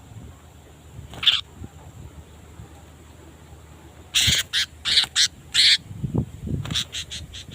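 A gentilang bird giving short, harsh calls: one about a second in, four about half a second apart in the middle, then a quick run of several near the end, with a few low thumps just before that run.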